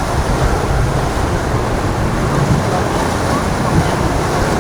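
Steady, loud wash of wind and surf, with boat engines running underneath.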